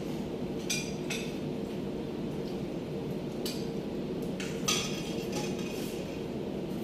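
Spoons and forks clinking against plates and a stainless steel bowl during a meal, a handful of short sharp clinks over a steady low hum.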